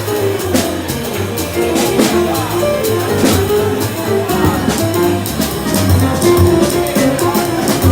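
Jazz-style music with drum kit and plucked strings over a moving bass line, at a steady beat.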